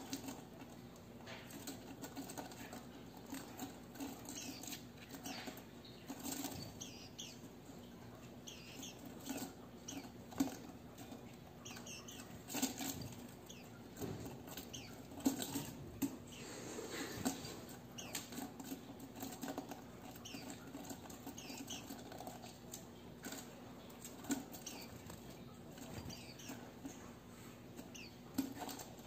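Small white-eyes giving short, high, thin peeps over and over, mixed with light wing flutters and taps as they hop about and peck at food on a hand.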